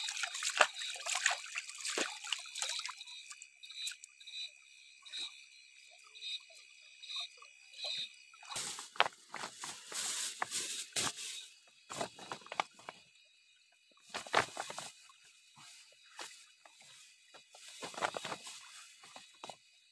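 Insects calling steadily, with a run of evenly repeated chirps for a few seconds early on. Irregular noisy bursts come and go over this, the loudest about halfway through.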